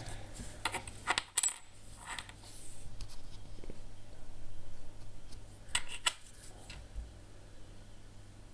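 Old copper-alloy coins being handled, giving a few sharp metallic clicks with a short ring as they knock against each other and the hard surface. There is a cluster of clicks in the first couple of seconds, a softer rustle of handling, then two more clicks about six seconds in.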